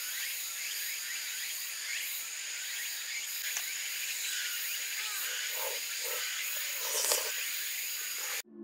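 Dense chorus of small animals calling outdoors: a steady high drone under short chirps repeated about twice a second, with a couple of faint clicks. It cuts off suddenly near the end.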